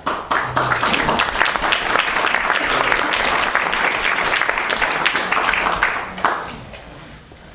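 Audience applauding: many hands clapping in a dense patter that starts suddenly, holds for about six seconds, then dies away.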